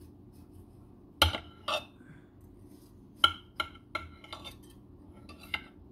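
Kitchen knife cutting through a baked ring cake, its blade clicking and clinking against the plate beneath several times.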